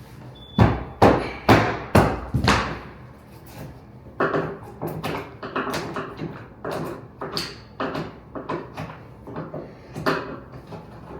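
Vinyl flooring planks being knocked into place. About half a second in come five quick hard knocks, roughly half a second apart, followed by a run of lighter, irregular knocks and clicks.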